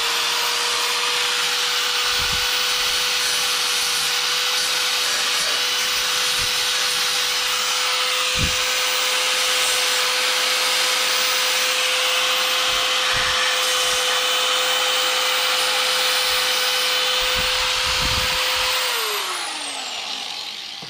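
Handheld electric belt file (narrow-belt power file) running at a steady pitch while grinding an edge off a sheet-metal rocker panel. Near the end it is switched off and its pitch falls as it spins down.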